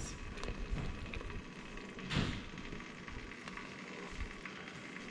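Sugared fruit jelly bubbling at a boil in a metal pot while a wooden spoon stirs it, with one brief louder swish about two seconds in.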